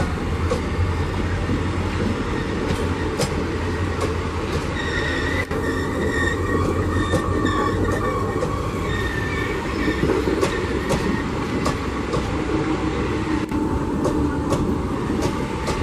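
Passenger train rolling past at low speed, a steady rumble with sharp clicks of wheels over rail joints. A faint high wheel squeal comes in from about five seconds in and fades a few seconds later.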